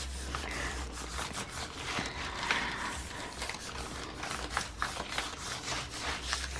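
A palm rubbing and smoothing tissue paper onto a gel printing plate, with many small, irregular crackles and rustles of the thin paper; near the end the tissue is peeled up off the plate.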